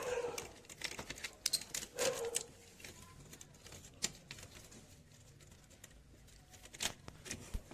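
Scattered light clicks and taps of the set-top box and its receiver card being handled and fitted together.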